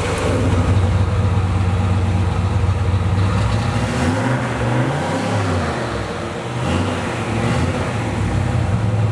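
Turbocharged Ford Fairmont engine idling with its electric exhaust cutout open, the exhaust bypassing the muffler like a straight pipe. About halfway through, the engine is revved once, rising and dropping back to idle.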